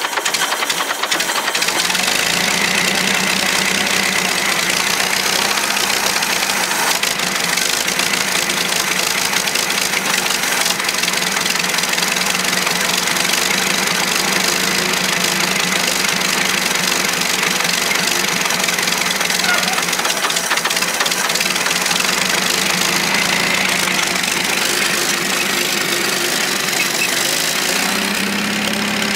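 Old Renault tractor's engine running steadily at low speed while the tractor is driven onto a trailer. Its note changes slightly near the end.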